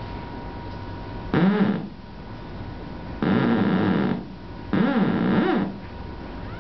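Vacuum-tube theremin heard through a guitar amplifier while being tuned. It gives three loud bursts of low, rough tone whose pitch wobbles up and down, the first short and the next two about a second each. Between them is a steady amplifier hiss and hum.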